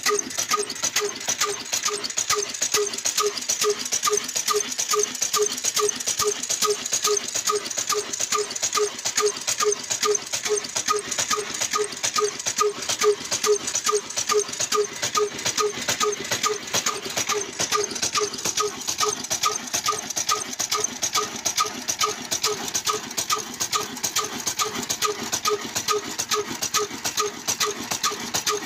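Old 22 hp black Ruston-type diesel engine running steadily at slow speed, a regular chugging beat of about three firings a second.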